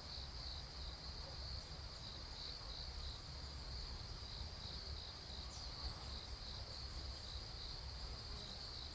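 A cricket trilling steadily in high, regular pulses, over a faint low rumble.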